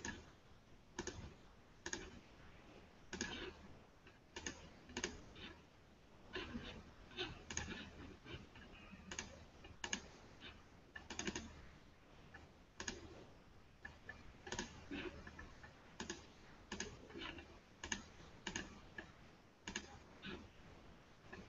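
Faint typing and clicking on a computer keyboard, irregular keystrokes about one to three a second.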